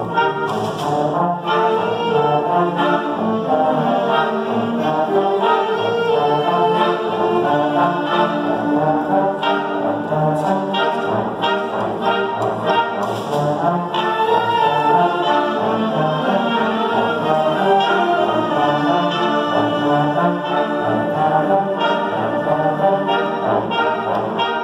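Student concert band playing, with trombones and flutes sounding full sustained chords. Sharp hits cut through about a second in and again around the middle.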